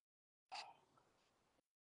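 Near silence, broken by one faint short sound about half a second in.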